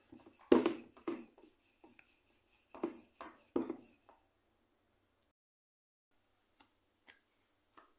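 Wooden rolling pin rolling out roti dough on a round wooden board, giving a run of knocks as pin and board bump, five or so in the first four seconds with the loudest about half a second in, then a few faint taps near the end.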